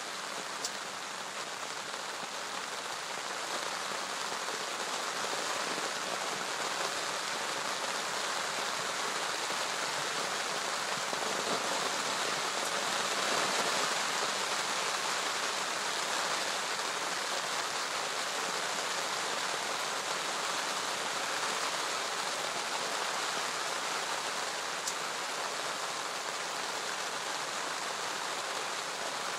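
Steady rain falling on the lake surface and the gravel bank, a continuous hiss that grows a little louder a few seconds in.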